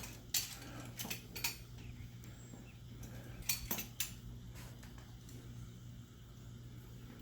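A handful of scattered metallic clinks and knocks from a manual motorcycle tire bead breaker being set against the tire and levered to break the bead, over a low steady hum.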